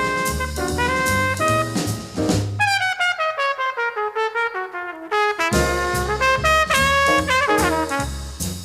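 Small-group jazz recording: a horn solo over walking bass and drums. About a third of the way in, the bass and drums drop out for an unaccompanied descending run, and the full band comes back in just past halfway.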